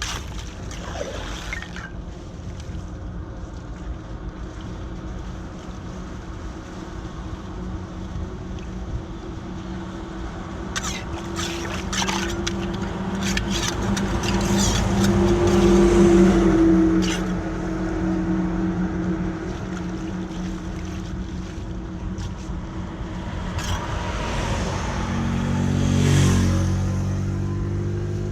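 An engine running steadily, growing louder to a peak about halfway through and again near the end, with a few sharp clicks in between.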